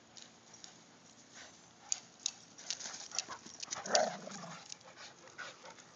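Two dogs play-fighting on grass: a flurry of scuffling and clicking noises, then a short, loud dog vocal sound about four seconds in.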